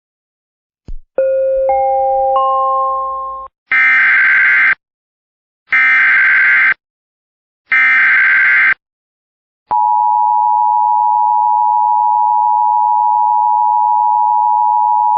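Start of an Emergency Alert System alert: a click and a rising three-note chime, then three one-second bursts of SAME digital header tones, then the steady two-tone EAS attention signal, which begins about two-thirds of the way through.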